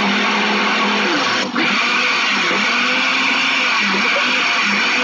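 Electric blender motor running steadily, blending chocolate ice cream and milk into a milkshake; it dips briefly about one and a half seconds in.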